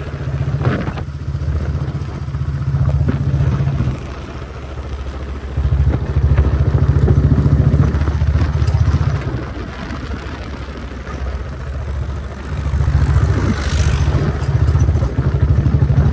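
Motorcycle engine running on the move, getting louder and quieter several times as the throttle is opened and eased off.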